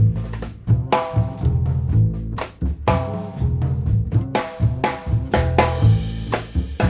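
Background music with a drum-kit beat and a strong bass line.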